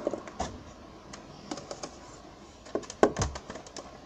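Irregular plastic clicks and rattles from a Nerf blaster and its drum magazine being handled, with a louder knock about three seconds in.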